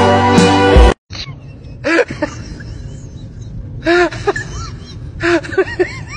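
Music cuts off about a second in. Then a small dog gives short, high whines and yips in a few groups, each call rising and falling in pitch, over a low steady hum.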